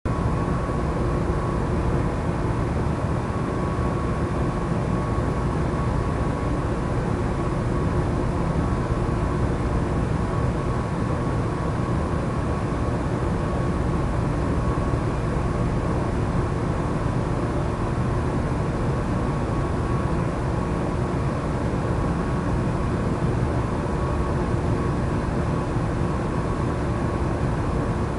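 Steady low rumbling background noise with a faint constant hum through it, unchanging throughout.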